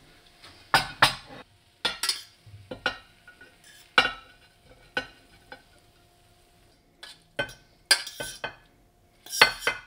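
A metal spoon scraping and knocking against a stainless-steel saucepan as cooked mixed vegetables are spooned out onto a ceramic plate. About a dozen sharp clinks and scrapes come at uneven intervals, the loudest near the end.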